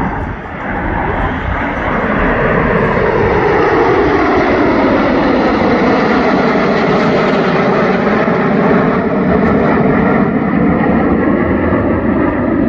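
Jet noise from a formation of six MiG-29 fighters flying overhead. It swells over the first couple of seconds and then stays loud, with a whine that slides steadily down in pitch as the jets pass.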